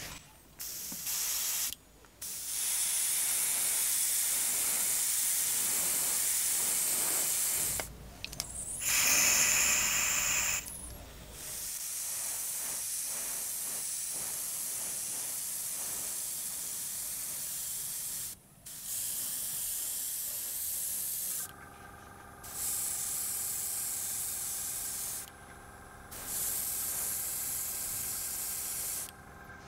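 Airbrush spraying paint in about seven bursts of hiss, each lasting one to several seconds, separated by short pauses. About two thirds of the way in, a steady hum with several tones starts underneath.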